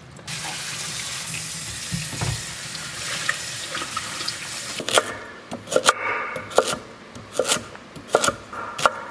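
Kitchen tap running onto butter beans in a metal mesh strainer as they are rinsed by hand. About five seconds in the water stops, and a chef's knife starts chopping a carrot on a wooden cutting board: sharp chops at irregular intervals.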